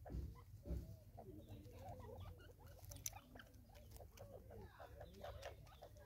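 Soft, quick squeaky calls from a small group of feeding francolins, many short notes overlapping throughout. Scattered light clicks and a low rumble lie underneath, with a couple of thumps near the start.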